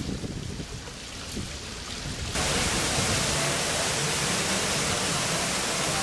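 Water gently splashing and trickling at a koi pond. About two seconds in it cuts abruptly to the steady rushing of an indoor waterfall pouring over rockwork into a pool.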